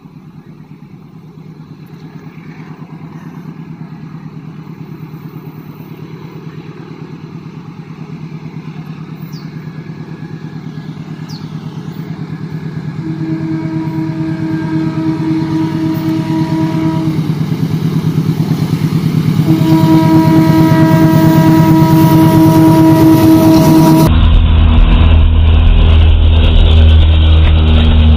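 CC 203 diesel-electric locomotive approaching, its engine growing steadily louder, with two long horn blasts partway through. Near the end, heard close up, the locomotive's diesel engine is loud and deep as it passes.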